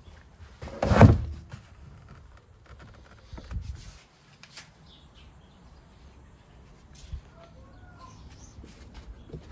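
Fabric bag holding a charging cable set down into a car boot's plastic underfloor storage compartment: a loud thud with rustling about a second in, then a softer bump at about three and a half seconds. Quieter afterwards, with a few faint bird chirps near the end.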